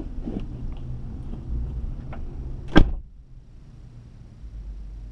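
A car door slamming shut once, nearly three seconds in, after which the background noise drops away.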